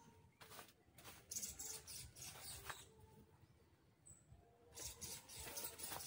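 Faint rustling and scattered light clicks, coming in two spells, with one brief high chirp about four seconds in.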